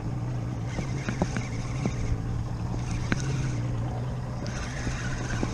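Boat's outboard motor running steadily at low speed, a constant low hum, with a few scattered light clicks and knocks over it.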